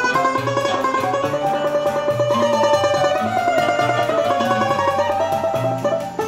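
Small acoustic choro ensemble playing an instrumental tune: flute, banjo and acoustic guitar, with fast picked banjo notes under the melody and guitar bass notes below.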